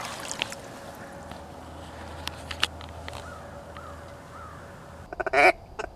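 A duck call blown by a hunter near the end: a few short notes, then one loud, longer quack. Before it, only faint clicks and knocks over a low steady hum.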